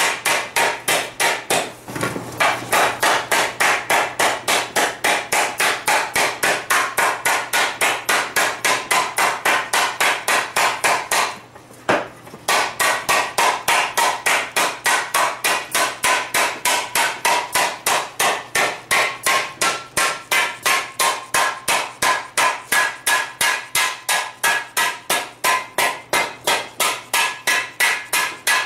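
A fast, even run of hammer blows on a steel frying-pan blank over a groove in a wooden stump, the steel plate ringing with each blow, with one short break about midway. The blows force the hot outer rim down into the groove to upset and shrink it.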